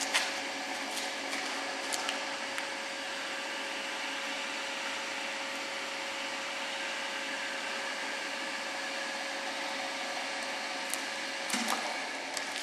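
WS 15 bench drill running idle: a steady motor and spindle hum with a constant whine, with a few sharp clicks near the start. About eleven and a half seconds in the steady tone cuts out with a short clatter.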